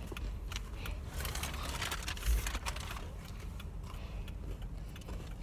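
Steady low rumble inside a car's cabin as the car moves slowly, with a swell of rushing hiss about a second in and a low thump a little after two seconds. Faint clicks come from the phone being handled.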